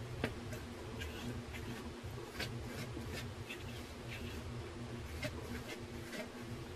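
Plastic wide-tooth comb scratching through hair in short, irregular strokes, with a sharper click about a quarter second in, over a steady low hum.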